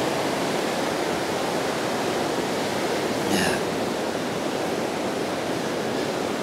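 Glacier-fed river rushing steadily, with one brief high-pitched sound about three seconds in.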